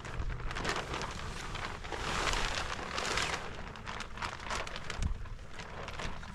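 Rain falling, with many scattered drop ticks over a steady hiss and a low rumble of wind on the microphone. About two seconds in, a louder rush of noise swells for about a second and then falls back.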